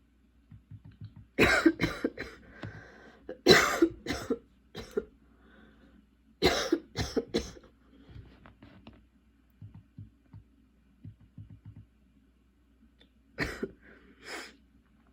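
A young woman coughing in fits from a persistent, hard-to-control cough: three clusters of several harsh coughs in the first half, then two single coughs near the end.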